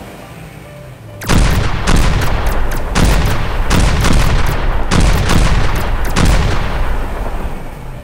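Cartoon battle sound effects: a rapid series of gunshots and explosion booms starting about a second in, over background music.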